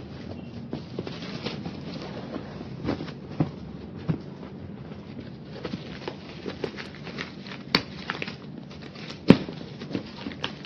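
Clear plastic wrapping on a cardboard box being picked at and peeled by hand, crinkling and crackling with scattered sharp clicks; the loudest click comes about nine seconds in.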